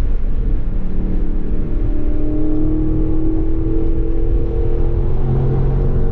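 Dodge Scat Pack's 392 HEMI V8 pulling hard under acceleration at highway speed, heard from inside the cabin. The engine note rises steadily as the car gathers speed, over a bed of road and tyre noise.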